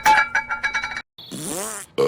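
A female cartoon character's burp, its pitch bending up and down over a hiss, lasting under a second after a sudden cut. Clicks and clattering cartoon sound effects with music come before it.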